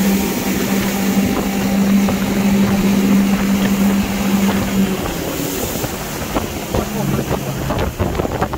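Outboard motor running hard with a steady drone as the boat speeds over the water, with wind buffeting the microphone. About five seconds in the throttle comes off and the engine note drops to a lower pitch as the boat slows.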